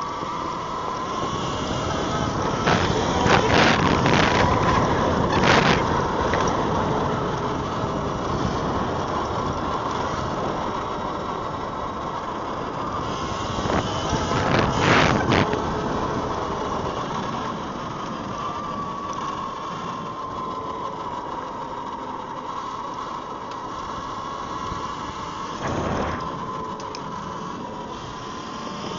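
Eride Pro SS 3.0 electric off-road bike being ridden: the motor's whine slowly rises and falls in pitch with speed over rolling and wind noise. Loud knocks and rattles come around three to six seconds in, at about fifteen seconds, and again near twenty-six seconds.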